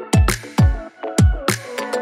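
Background music: an electronic dance track with a deep kick drum that drops in pitch on each beat, sharp percussion and a synth melody.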